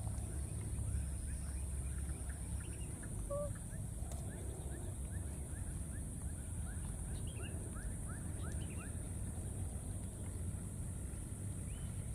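Outdoor ambience: a steady low rumble and a constant high-pitched hiss, with many short, quick chirps scattered through it.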